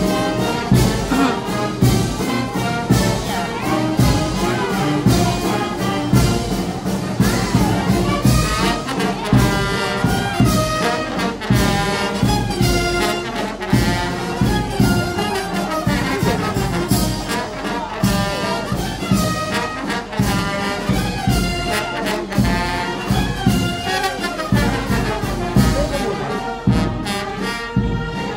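Brass band music with trumpets and trombones playing a tune over a steady beat.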